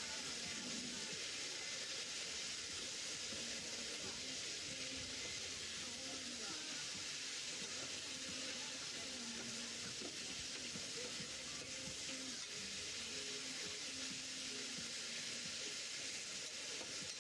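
Noodles, vegetables and sauce sizzling on a hot flat-top griddle as they are stir-fried with spatulas: a steady, even frying hiss.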